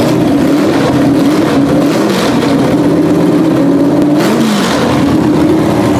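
Tractor engine running loud and steady. Its carburetor's needle and seat, which had dried out and let it flood with fuel, are now repaired.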